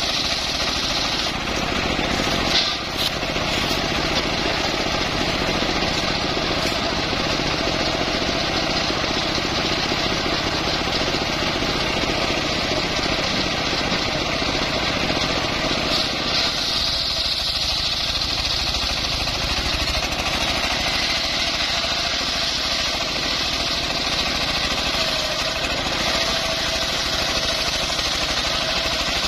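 Engine-driven homemade circular-saw sawmill running steadily as its blade cuts through a mahogany log, with a brief knock about three seconds in.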